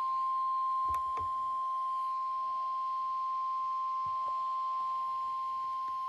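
NOAA Weather Radio warning alarm tone: one steady, unbroken high beep of about 1050 Hz. It signals that a warning, here a severe thunderstorm warning, is about to be read. A couple of faint clicks sound about a second in.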